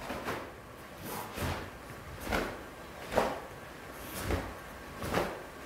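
Taekwondo form movements: about six sharp swishing snaps of the uniform and bare-foot stamps on the mat, roughly one a second, as each block and strike is driven home.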